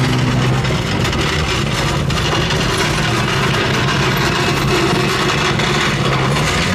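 A car engine running fades out in the first half-second. What follows is a steady loud mechanical din with tool clatter, as mechanics take a wheel off a rally car.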